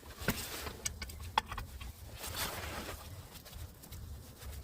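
A few light clicks and taps of metal bolts and parts being handled while fitting a turbocharger, over a low background rumble, with most of the taps in the first two seconds.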